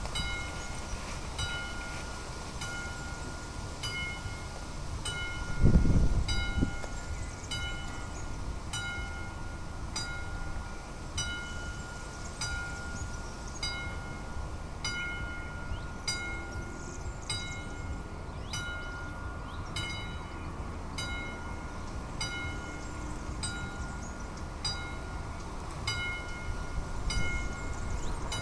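Railway level-crossing warning bell of an AŽD 71 crossing system, striking steadily about one and a half times a second with a sustained ring. It keeps ringing with the barriers already down, to warn pedestrians. A brief low rumble comes about six seconds in.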